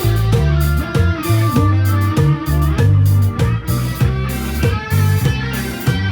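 Instrumental rock music, with an electric guitar bending notes over a bass line and drums.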